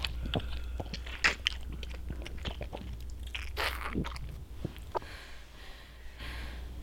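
Wet biting and chewing sounds of a vampire feeding on a victim: irregular squelches and crunches, with a longer wet stretch midway, over a low steady hum.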